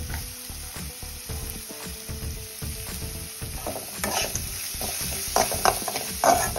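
A perforated metal spatula scraping and stirring around a metal kadai as onion, curry leaves and dried red chillies sizzle in hot oil. The scrapes grow louder and more frequent in the second half.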